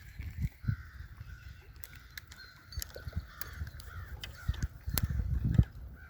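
Birds calling in a steady wavering chatter, with crow-like caws. Scattered clicks and low thumps come through the microphone, the loudest just past the five-second mark.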